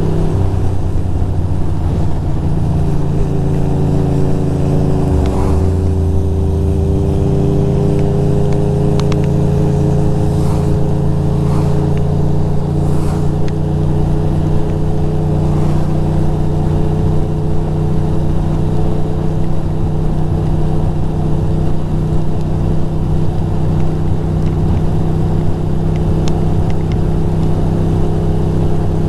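2006 Ducati Monster 620's air-cooled L-twin engine running steadily while the motorcycle is ridden, its note shifting briefly about five seconds in and then holding steady.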